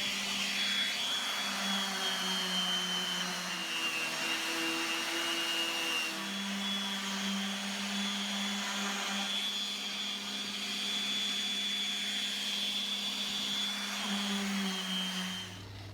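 Electric power sander running on a glued-up panel of resawn 2x10 board, taking out the saw-blade marks. Its steady motor tone sags in pitch for a few seconds, then rises again, and it shuts off near the end.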